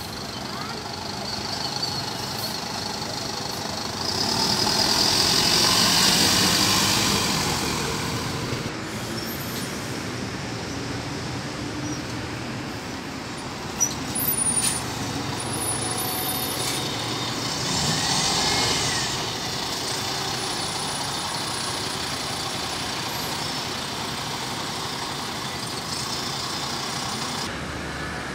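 City buses pulling out of a station exit and driving past close by. Their engine and tyre noise swells twice as each one passes, with a sharp clack about halfway through.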